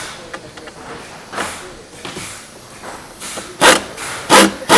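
Light scraping and clicks of parts being handled, then, from about three and a half seconds in, a pneumatic impact wrench firing in short repeated bursts, each about half a second long, to run lock nuts onto the door-jamb bolts.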